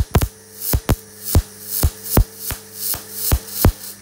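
Cebora Autostar 180 MIG welder laying short tack welds on steel box section: a quick series of short crackling arc bursts, about two or three a second, over a faint steady hum.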